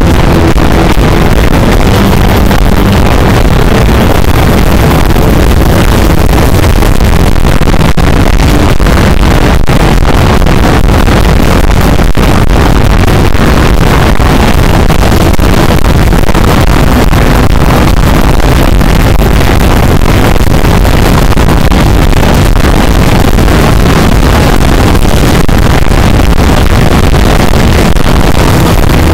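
Rock band playing live at high volume, with bass guitar and drums, picked up by an overloaded microphone. The music comes through as a heavily distorted, clipped, continuous roar.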